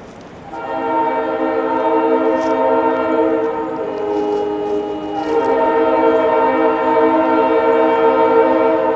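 Leslie RS3L three-chime air horn on a GP38 diesel locomotive, blown in a long blast that starts about half a second in and eases a little around four seconds. A second long blast follows from about five seconds in.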